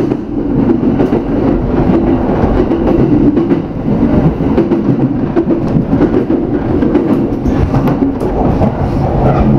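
Yamanote Line electric commuter train running, heard from inside the car: a steady rumble with the wheels clacking over rail joints and points.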